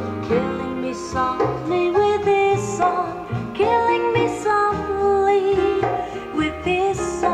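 A recorded song playing through a home-built P3A transistor power amplifier and a full-range speaker: a melodic passage over a stepping bass line between the sung lines.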